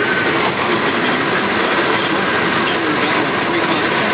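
Car driving at highway speed: steady road and engine noise.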